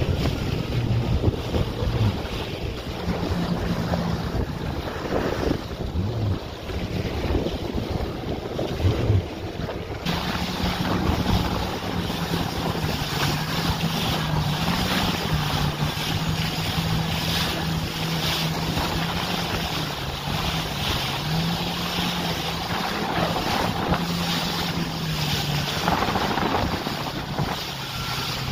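A boat engine running at steady cruising speed, its hum wavering a little in pitch as the boat rides the waves. Under it, wind buffets the microphone and water rushes and splashes against the hull.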